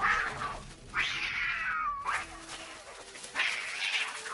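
Domestic cats yowling (caterwauling) in a fighting standoff: a string of drawn-out wavering yowls, each sliding down in pitch, about a second apart.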